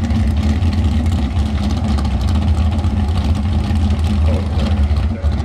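Jet sprint boat's engine idling steadily as the boat is pushed off into the water.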